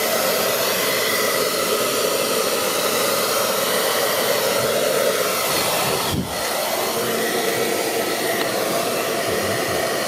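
Pro Moser 3000 W hair dryer running steadily on its first speed setting: a continuous rush of blown air over the motor's hum. It dips briefly about six seconds in.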